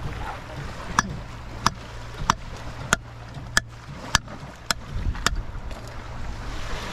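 Hammer striking a conch shell about eight times in a steady rhythm, a sharp crack roughly every two-thirds of a second. It is knocking a hole in the shell so the conch can be cut free.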